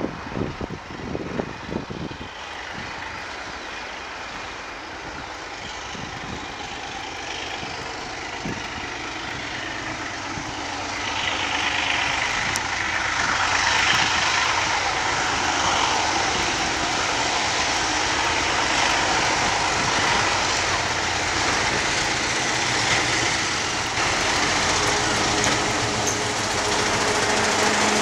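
ALCo RSD16 diesel-electric locomotive approaching with a loaded train, the running of its 16-cylinder ALCo 251 diesel engine growing steadily louder as it nears. Near the end it passes close by, and a steady engine drone stands out.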